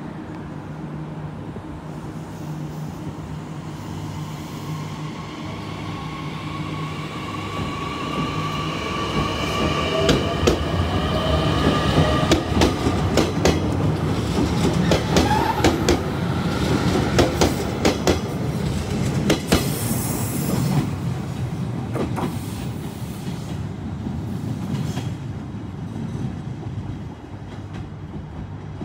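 A JR Kyushu 817 series electric train pulls in along the platform. Its motors whine in several tones, then the wheels click over the rail joints as the cars pass, with a brief hiss about two-thirds of the way through. The sound is loudest in the middle and fades near the end.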